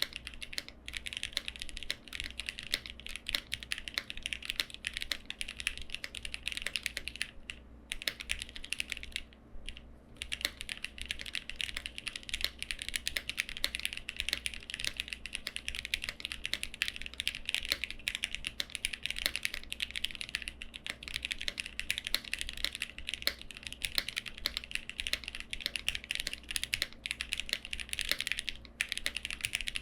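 Lucky65 v2 mechanical keyboard being typed on quickly and continuously. It has lubed Gateron Milky Yellow linear switches, no case foam and tuned Cherry plate-mount stabilizers. The typing pauses briefly about eight seconds in, again just before ten seconds, and once more near the end.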